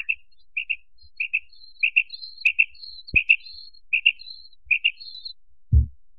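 Quail calling: a short, sharp two-note call repeated about eight times, roughly every two-thirds of a second, with fainter higher notes between the calls. A brief knock near the middle and a low thump near the end.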